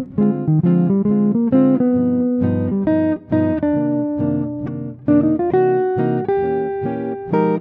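Instrumental background music on a plucked string instrument: a quick run of single notes, several a second, over lower sustained notes.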